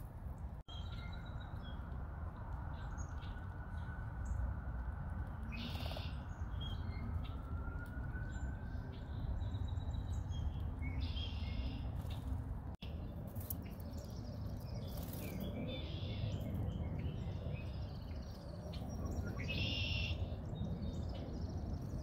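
Small songbirds giving short, high chirping calls every few seconds over a steady low background rumble.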